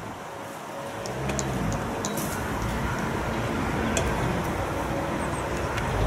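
Low rumble of road traffic, swelling gradually from about a second in, with no siren tone.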